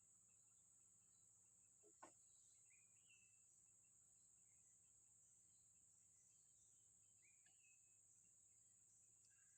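Near silence outdoors: a faint steady high insect drone, with one faint click about two seconds in and a few faint short bird chirps.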